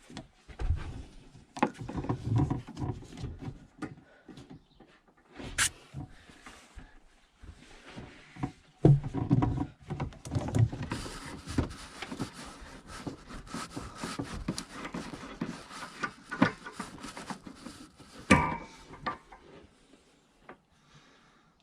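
Hands working plastic water pipe and push-fit fittings at a water heater: irregular rustling and handling noise with scattered clicks and knocks, a few of them louder.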